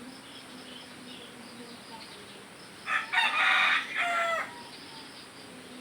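A rooster crowing once, about three seconds in, for about a second and a half, ending on a falling note; faint insect and bird chirping runs underneath.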